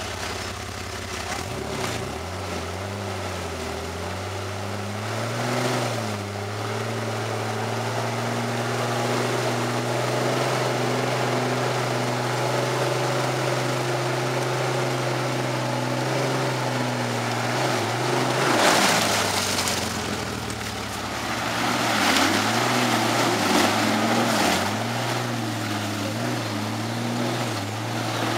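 Jeep Wrangler engine revving hard as the wheels churn through deep mud. It is held at steady high revs for about ten seconds, then drops briefly under a loud rush of noise from the mud, then revs up and down repeatedly.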